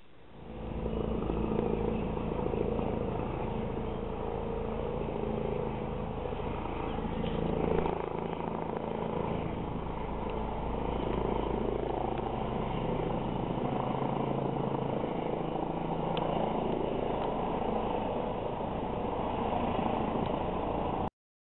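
Helicopter flying overhead, its rotor and engine drone holding steady, then cutting off abruptly near the end.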